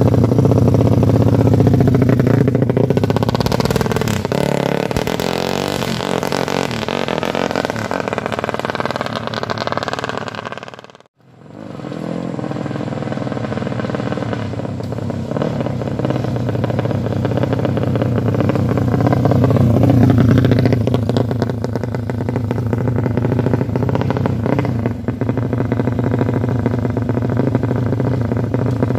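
Tuned motorcycle engine running on the stand, its revs rising and falling a few times; the sound drops out briefly about eleven seconds in, then the engine carries on.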